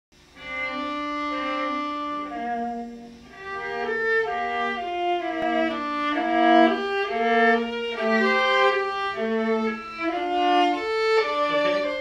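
Viola played with the bow: a slow melodic passage of sustained notes, partly played on two strings at once.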